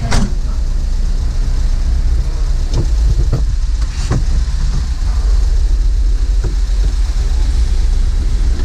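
Volkswagen Kombi's engine running as a steady low rumble, with rain noise over it. There is a sharp click right at the start and a few lighter taps after.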